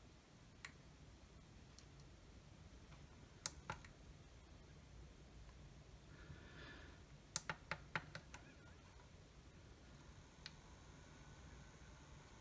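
Near silence broken by a few sharp clicks and taps from hands handling an opened LED projector's circuit board and its power lead, with a quick run of about five clicks between seven and eight and a half seconds in.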